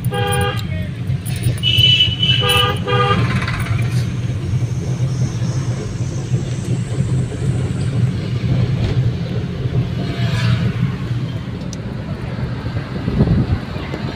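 Inside a moving car: a steady low engine and road rumble, with a few vehicle horn toots in the first three seconds.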